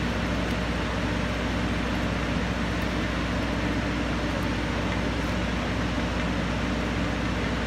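Pratt & Whitney PT6A-60A turboprop turned over by its starter for a compressor wash, a steady, unchanging mechanical hum with a hiss over it.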